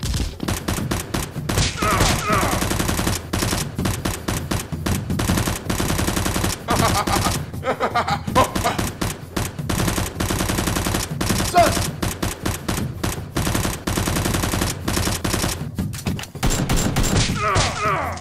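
Sustained rapid automatic gunfire, long bursts of shots in quick succession, with short shouts from the fighters now and then.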